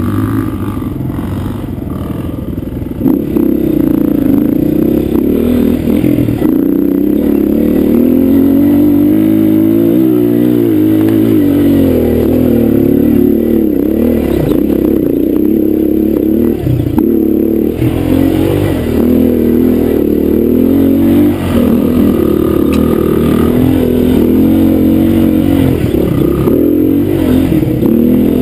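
Honda dirt bike engine running under way on a trail, its pitch rising and falling with the throttle; it gets louder about three seconds in.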